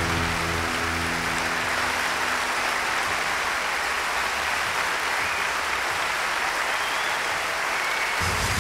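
Audience applause and cheering, steady throughout, with the last low notes of the band's song dying away under it in the first second or so.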